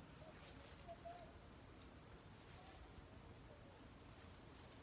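Near silence: quiet outdoor ambience with a few faint, short animal calls.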